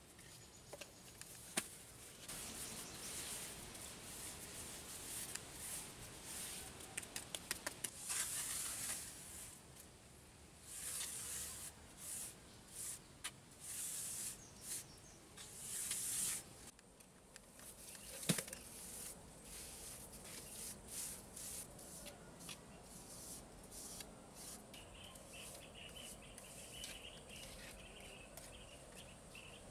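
Metal trowel scraping and smoothing wet cement mortar over a concrete floor in a run of short strokes, with an occasional sharp knock.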